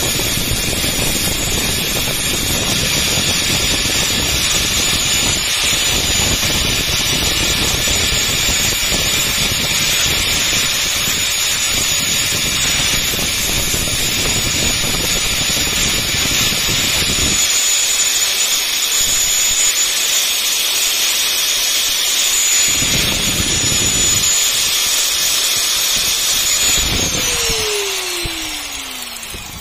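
Bench grinder running with a steady high whine while the steel jaw tips of wire-cutting pliers are ground against the wheel. The grinding eases about two-thirds of the way in, leaving a couple of short touches. Near the end the grinder is switched off and its whine falls as the wheel spins down.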